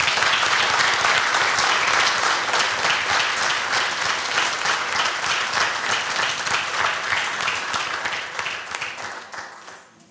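Audience applauding: a steady round of clapping that tails off over the last couple of seconds.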